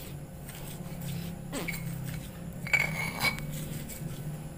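Stone pestle grinding and scraping soft bait paste in a flat stone mortar (cobek and ulekan), with a few knocks and clinks of stone on stone, the clearest about three seconds in. A low steady hum runs underneath.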